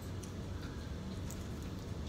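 Quiet eating: a few faint clicks from chewing over a low steady hum.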